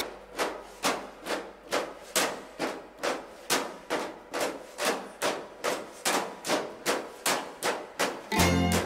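Background music: a steady percussion beat of sharp clicks, about two and a half a second, with a bass line coming in near the end.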